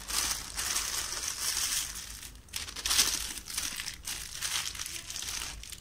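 Thin plastic disposable piping bag crinkling as it is handled, with a sharper rustle about three seconds in.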